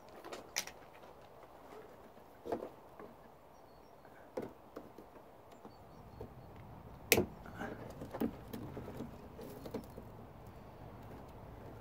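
Scattered knocks and clicks of hands handling tools and parts, the loudest about seven seconds in, with a faint low steady hum coming in about halfway.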